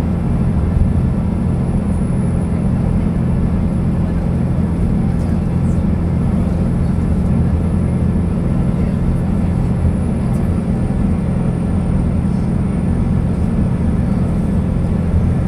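Highway coach running at steady speed, heard from inside the passenger cabin: a constant low engine and road drone with a faint high whine above it that slowly falls in pitch.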